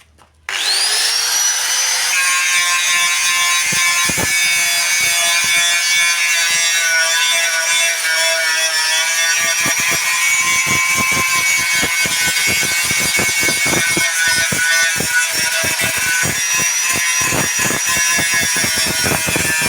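Handheld electric power tool spinning up about half a second in and running steadily at high speed with a high whine. From about halfway, its bit or disc is working against a surface, adding rapid scratchy ticking.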